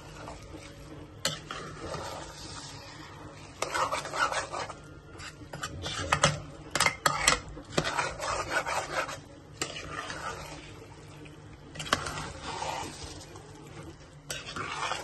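A spoon stirring and scraping in a cooking pot of biryani, with a run of sharp clinks against the pot about six to seven seconds in.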